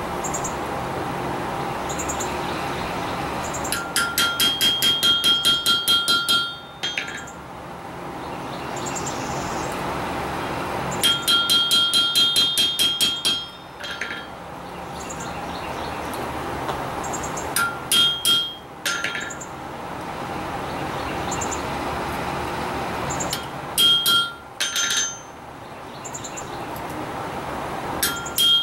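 Hammer blows on steel over an anvil, each with a bright metallic ring: two quick runs of about a dozen blows, then single and paired blows on a chisel cutting into a thin steel disc that has gone cold. A steady hum runs underneath.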